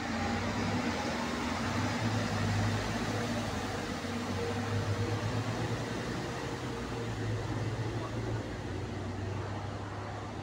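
Steady low engine hum from a metro bus at the station platform, with a faint higher tone held for a few seconds in the middle.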